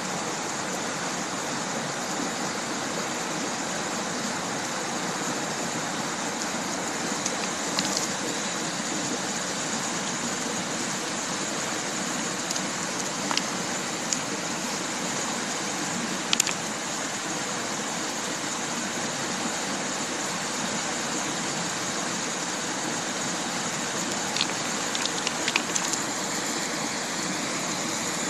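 Steady rush of a mountain river flowing over stones, with a few short sharp clicks as stones are handled and knocked together.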